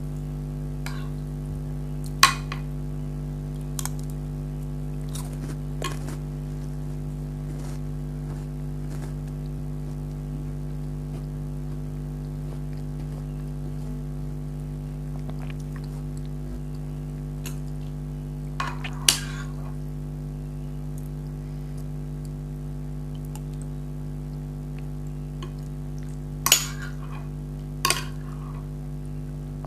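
Spoon clinking against a dish now and then while eating: a handful of sharp, short clinks, the loudest about two seconds in, around the middle and near the end, over a steady low hum.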